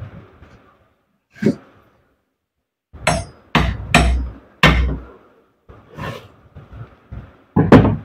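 A hand hammer striking repeatedly during the repair of the grinder's armature. There are about seven sharp, irregularly spaced knocks; the heaviest come in the middle and near the end.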